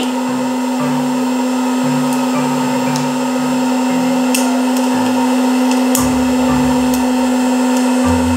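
VonShef retro hot-air popcorn maker running: a steady fan whir with a strong hum, and a few sharp pops as the first kernels burst.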